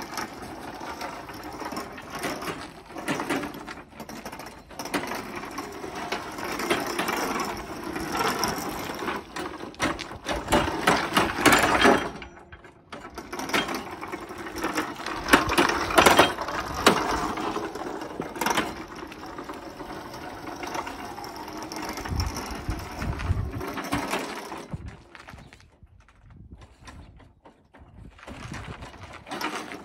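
Wheelchair motors driving a remote-controlled mower chassis through roller chains, the chains clattering and rattling loudly as it drives and changes direction. The sound drops away for a few seconds near the end as the machine moves off.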